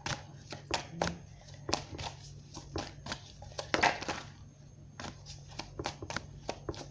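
A deck of tarot cards being shuffled in the hands: short, irregular flicks and slaps of cards against each other, a few a second, with a longer, louder rustle a little before four seconds in.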